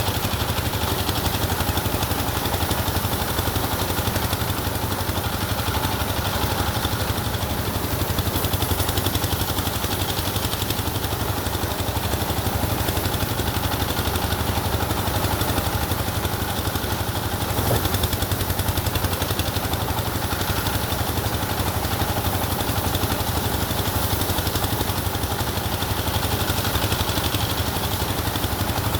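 An engine running steadily at an even speed with a low hum, with no change in pitch.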